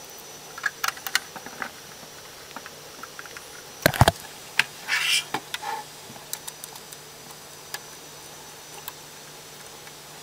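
Small clicks and taps of a screwdriver and screws against a router's sheet-metal case, with one louder knock about four seconds in and a brief rasp just after it.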